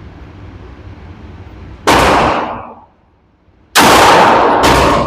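Three 9 mm pistol shots from a Glock 19X: the first about two seconds in, then two more a second apart near the end, each loud with a short ringing tail.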